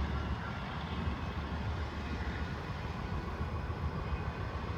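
Steady low rumble of a train of ore cars moving along the track, heard from a distance, with wind on the microphone.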